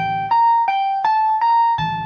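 A guitar lick played back slowly as clean single notes, about three a second, over a low chord that strikes about every second and a half.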